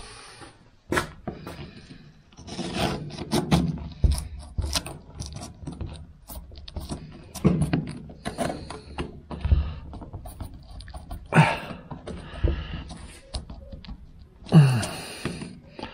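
Close handling noise: irregular scrapes, clicks and knocks with a few dull thumps, as hands and camera work along the body of a VW T2 Bay camper van around its brittle window rubber.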